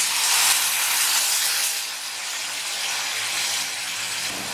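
Water poured into a hot pan of fried onion-tomato masala, hissing and sizzling loudly as it hits. After about two seconds the hiss eases to a softer, steady sizzle.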